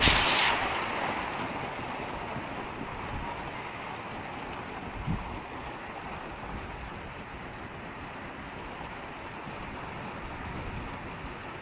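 Hail and heavy rain beating steadily on a corrugated roof: an even hiss of countless small impacts. A loud rush right at the start fades over a second or two, and there is one dull thump about five seconds in.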